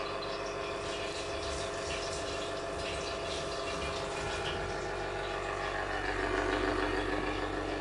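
A steady mechanical hum of a running motor or engine, even in pitch and level throughout.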